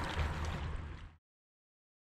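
River water sounds with a low rumble, fading and then cutting to silence just over a second in.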